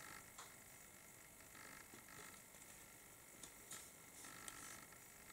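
Near silence: faint room hiss with a few soft clicks from plastic model-kit parts and sprues being handled.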